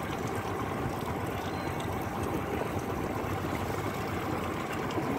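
Steady wind and water noise around a boat as a crab trap is hauled up by its rope, with water running and trickling off the trap.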